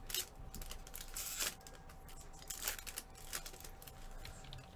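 Packaging being handled at a card-breaking table: a few short bursts of crinkling and tearing with light clicks in between, over a faint steady tone.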